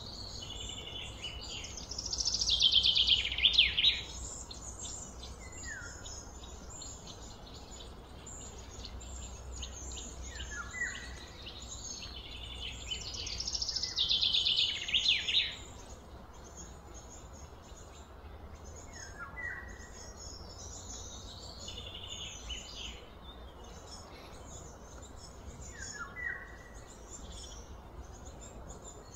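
Insects and birds: a steady high chirring, broken twice by a loud buzzy call that falls in pitch over about two seconds, once about two seconds in and again about thirteen seconds in. Short downward bird chirps come every few seconds.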